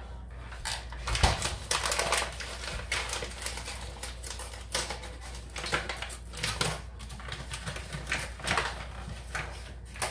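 Sugar being poured from its bag into a drink jug: irregular crackling and pattering, with a few louder rustles of the bag.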